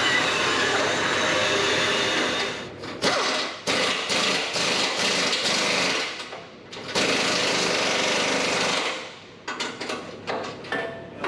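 Power drill drilling holes in steel for the bullbar's mounting pins, running in long stretches with pauses, then a run of short trigger blips near the end.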